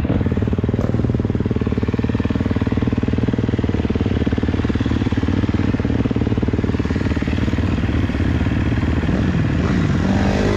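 KTM motocross bike's single-cylinder engine idling steadily, heard close up from the bike itself.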